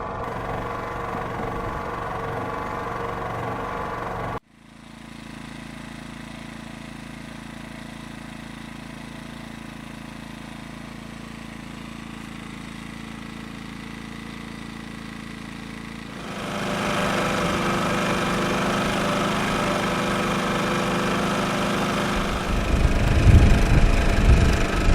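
Champion inverter generators running steadily, heard in separate takes: a steady hum that cuts off abruptly about four seconds in to a quieter steady hum, which steps up louder about sixteen seconds in. Uneven low buffeting joins near the end.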